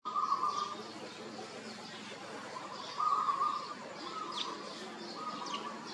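Birds calling: a repeated held call of about half a second, heard four times and loudest at the start and about three seconds in, with thin high chirps and a couple of quick falling notes in between.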